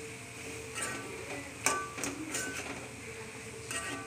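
Steel ladle stirring a thick vegetable and coconut mixture in an iron kadai, scraping and clinking against the pan several times, some strikes ringing briefly.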